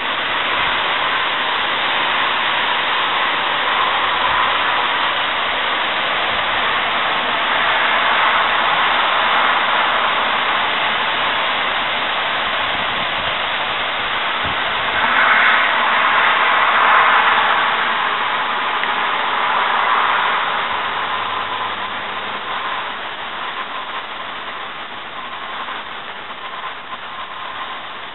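Gusty wind rushing through the trees ahead of a thunderstorm: a steady hiss that swells twice, most strongly about halfway through, then slowly dies down.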